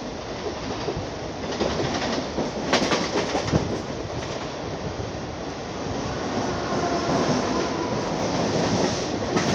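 Mumbai suburban local electric train running at speed, heard from its open doorway: a steady rumble and rush of wheels on rails. There is a burst of clicking clatter about three seconds in.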